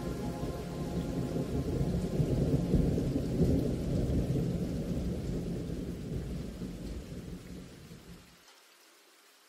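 Thunder rumbling over steady rain, swelling around the middle, then fading and cutting off abruptly about eight and a half seconds in.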